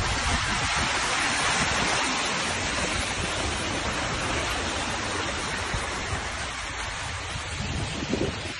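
Steady rushing noise of rain and wind in a storm.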